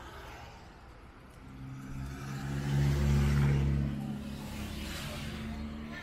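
Songtaew's engine running at a steady pitch, heard from the open rear passenger area; it comes up about a second and a half in and is loudest around the middle.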